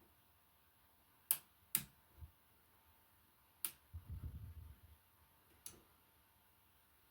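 Sharp clicks of small toggle switches being flipped on a modified Fender Champion 600 amplifier, four in all over several seconds. A soft low thump follows the second click, and a brief low rumble comes about four seconds in.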